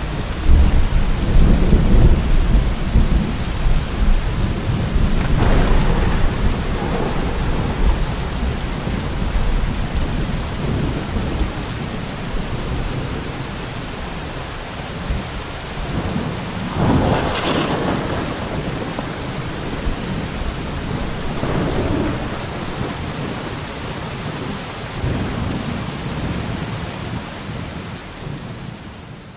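Thunderstorm: steady heavy rain with rolling thunder, a deep rumble over the first several seconds and a sharper clap of thunder about two-thirds of the way through, followed by softer rolls. The storm fades out at the end.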